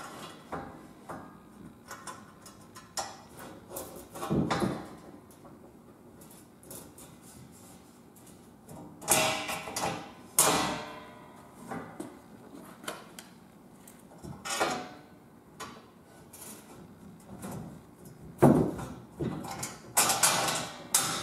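Scattered metal clicks, taps and clanks of bolts, washers and nuts being fitted by hand through the steel foot platform and ladder of a ladder tree stand, with a few louder clanks of the steel tubing about nine seconds in and near the end.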